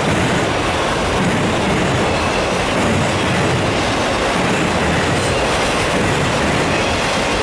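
Freight train of autorack cars rolling past at close range: a loud, steady rumble of steel wheels running on the rails.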